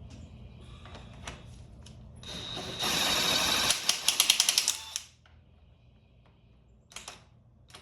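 A wrench ratcheting on a fastener on a dirt bike's front end: a loud whirring run that turns into quick sharp clicks, then stops. A single brief click follows near the end.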